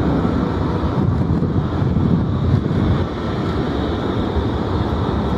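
Airbus A320neo-family airliner's twin jet engines running at taxi power as the aircraft rolls slowly along the taxiway: a steady rumble with a faint high whine above it. Wind buffets the microphone.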